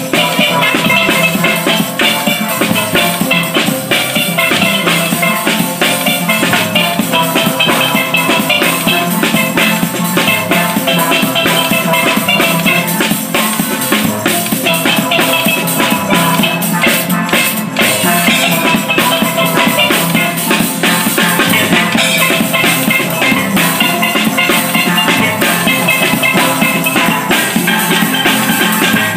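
Steel band playing: several steelpans ringing out a rhythmic tune over drums, loud and unbroken.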